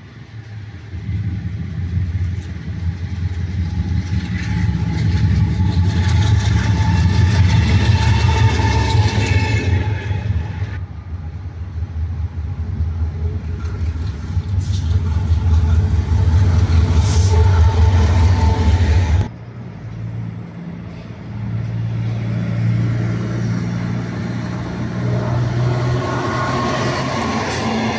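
An approaching train's steady low rumble, with a few faint steady tones over it. About two-thirds in it cuts off abruptly, and an electric locomotive hauling passenger coaches comes up, its rumble and wheel noise growing as it passes close by near the end.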